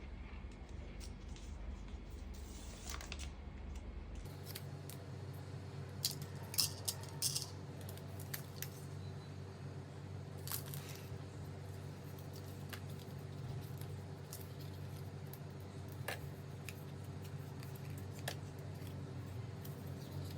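Scattered light clicks and clacks of small plastic toy parts being handled, a few in quick succession about six seconds in, over a steady low hum.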